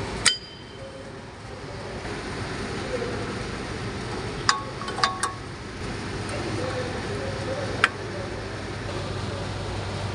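Sharp metallic clinks of new brake pads and their steel backing plates knocking into a disc-brake caliper bracket as they are fitted: one near the start, three close together about halfway through, and one more near the end, each ringing briefly.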